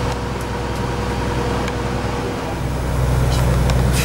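Steady low drone of a motor cruise ship's engines heard aboard while under way, with a faint steady higher hum over it. The drone grows louder about three seconds in.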